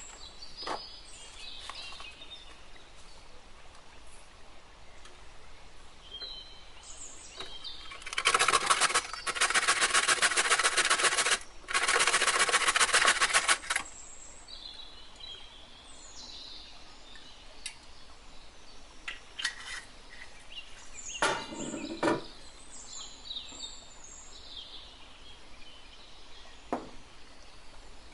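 Small kitchen handling noises and light clicks, with birds chirping in the background. About eight seconds in, a loud dense buzz starts, breaks off briefly, resumes and stops after about five seconds in all. A single louder knock comes about two-thirds of the way through.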